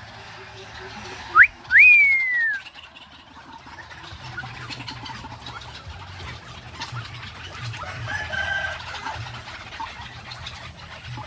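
Birds calling: a short rising note and then a loud whistle falling in pitch about two seconds in, and a fainter, longer call near the end, over a steady low hum.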